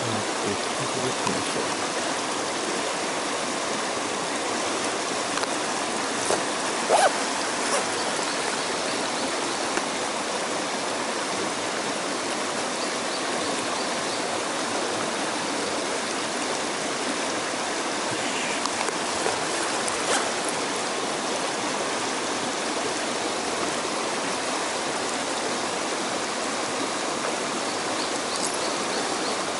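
Mountain stream rushing steadily over rocks, with a few short clicks about seven seconds in and again around twenty seconds.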